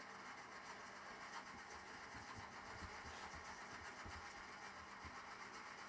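Stanley 12-101 trim plane blade rubbed in small circular motions on an oiled whetstone: a faint, steady scraping hiss.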